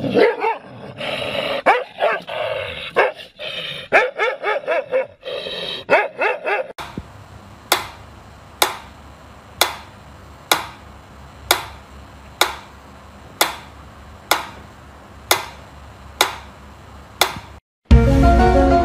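A dog barks and yips repeatedly in quick runs. Then a mechanical pendulum metronome ticks steadily, about once a second, for roughly ten ticks. Music starts near the end.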